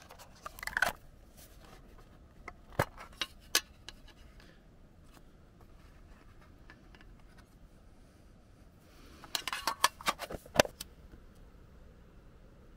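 A small metal tin being handled: sharp metallic clicks and clinks from the lid, and pieces of fatwood and firelighter rattling inside it. There is a short flurry about half a second in, three single clicks around three seconds in, and a busier cluster about three quarters of the way through.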